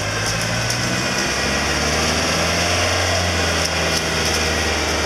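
A van's engine idling steadily.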